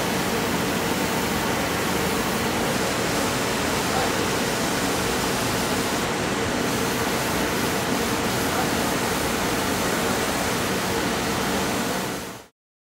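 Steady hiss and hum of workshop machinery, a belt grinder running with no blade pressed to the belt. It cuts off suddenly near the end.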